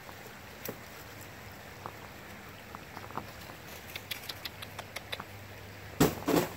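Light crunching steps and small ticks on snow and an icy plank, then about six seconds in a sudden loud crunch of ice breaking underfoot.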